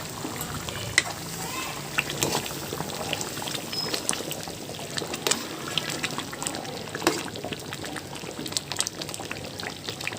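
Thick gongura chicken gravy simmering in a pan, bubbling and popping with many sharp little splutters. This is the last minutes of cooking down, until the gravy is thick enough.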